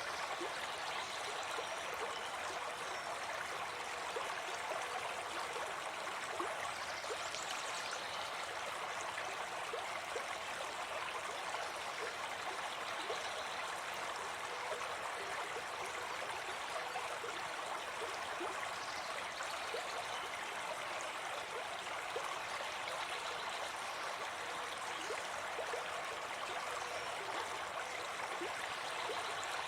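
Forest stream running steadily, a continuous babbling of water.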